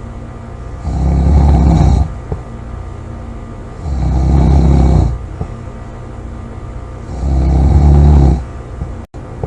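A person snoring loudly: three long, low-pitched snores about three seconds apart, with quieter breathing between them.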